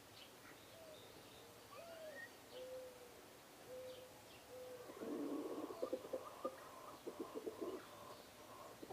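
Birds calling: low, drawn-out hooting notes and faint high chirps, then a louder, rougher stretch of rapid pulses from about five seconds in.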